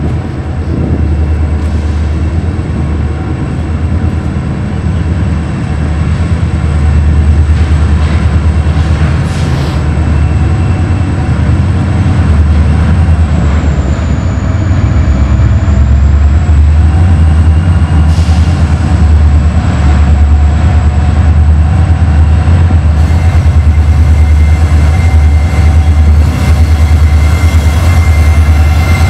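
Diesel freight locomotives running as the train pulls slowly through. Their deep engine rumble grows a little louder as the lead unit nears. A faint steady high ring joins about two-thirds of the way through.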